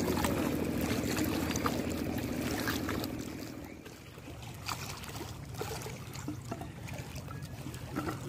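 A small engine hums steadily, then fades away about three to four seconds in. Water trickles and laps at the river's edge throughout, with a few light knocks.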